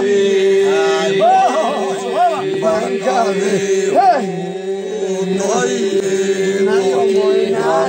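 Albanian polyphonic folk singing by men: a steady held drone under a lead voice that rises and falls in short, ornamented phrases.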